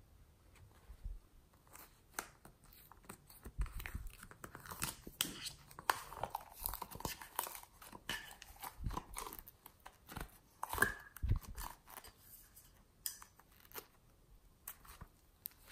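Soft modelling clay being peeled away from a plastic tray and handled: irregular crackling and soft tearing, with a few dull knocks of the plastic. It is sparse at first and busiest in the middle.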